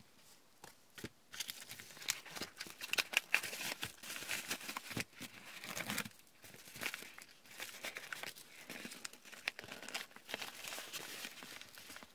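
Padded kraft-paper mailer envelope crinkling and rustling as it is handled and held open, in irregular crackles that start about a second in.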